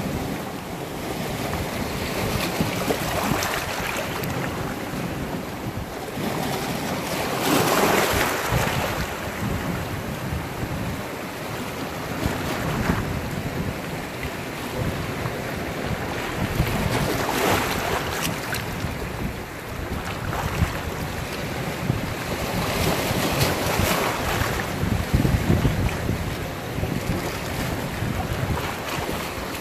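Sea waves washing and foaming against a rocky shore, swelling and easing every few seconds, with wind buffeting the microphone.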